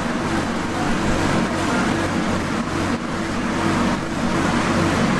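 A steady low mechanical hum, like the rumble of vehicle traffic, continuing without a break.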